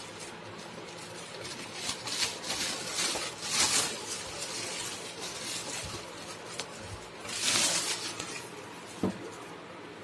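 Clear plastic wrapping bag crinkling and rustling as it is pulled off a room heater, in several bursts, the loudest about three and a half seconds in and again about seven and a half seconds in. A sharp click follows about nine seconds in.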